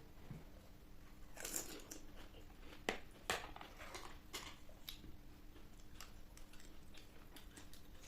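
Mouth-close eating sounds: crisp panipuri shells biting and crunching, with scattered sharp crackles and clicks. The loudest crunches come between about one and a half and five seconds in.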